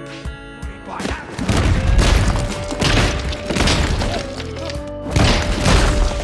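Music with a held tone under a series of loud, booming crashing hits that start about a second in.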